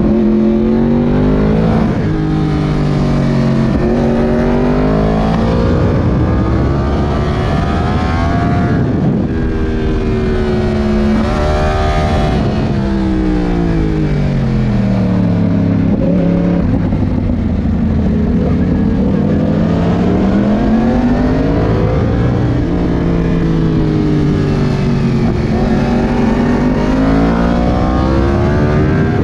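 Yamaha R1's CP4 crossplane inline-four engine under hard riding, its note climbing in pitch through the gears and falling again several times as the bike accelerates and slows.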